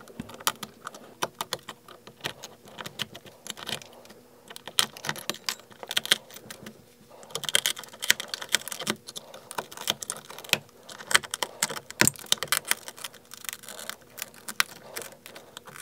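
Hobby knife blade prying and scraping shattered back glass off an iPhone 12 frame whose adhesive has been vaporized by laser: a fast, irregular run of sharp clicks, cracks and short scrapes as shards of glass chip away.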